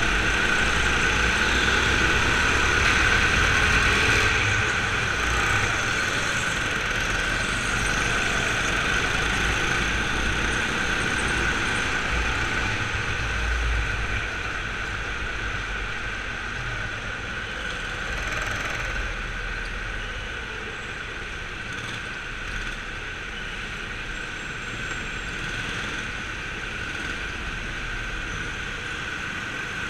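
Indoor go-kart running, heard from a camera mounted on the kart, with a steady drone and low rumble. It gets quieter about halfway through as the kart slows for the pit lane.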